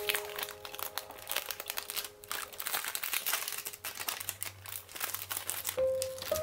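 Cellophane wrapping crinkling and crackling in quick rustles as it is peeled and torn off a perfume box. Soft background music notes ring at the start and come back near the end.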